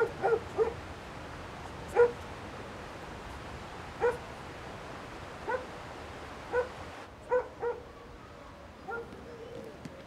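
A dog barking in short single barks, one every second or two, over the steady rush of running water; the water sound stops about seven seconds in while the barking goes on.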